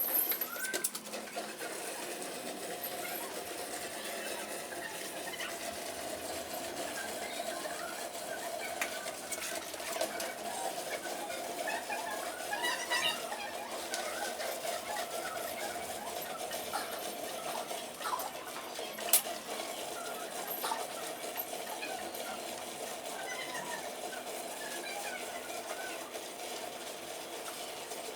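Milking machine running steadily with a constant hum, while small birds chirp now and then and a couple of sharp clicks sound, one about 19 seconds in.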